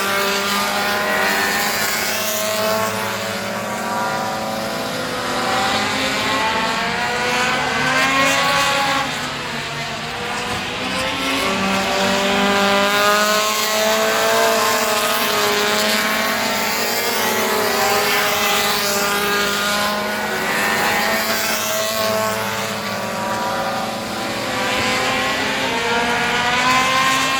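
Several Pro Compact race car engines racing on a short oval, pitch rising and falling again and again as they accelerate down the straights and lift for the turns.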